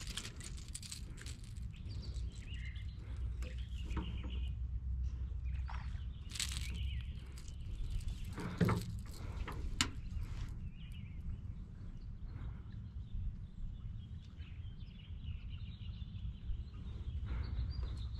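Waterside ambience: a steady low rumble with faint bird chirps, and scattered clicks and taps from hands handling a freshly caught fish and line.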